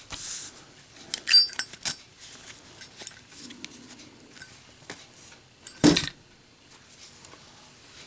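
Zippo lighter being handled: its metal lid clicks open with a short ringing clink about a second in and the flint wheel is struck. Just before the last two seconds comes a single loud knock as the lit lighter is dropped onto the table in a drop test.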